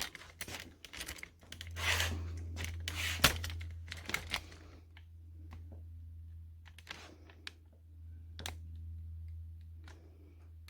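Handling noise: clicks, knocks and rustling, busy for the first few seconds and then only occasional clicks, over a steady low hum.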